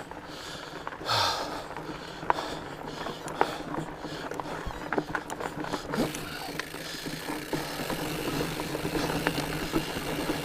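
Fat bike being ridden up a trail: the fat tires rolling over dirt and rocks, with scattered clicks, knocks and rattles from the bike.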